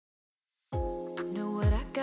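Dead silence for a moment, then background pop music cuts in, with held notes over deep bass notes that slide downward.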